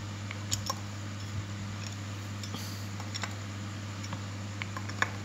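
Scattered light metallic clicks and taps from hands working the blade drum and clamp bolts of an electric hand planer, the sharpest one near the end, over a steady low hum.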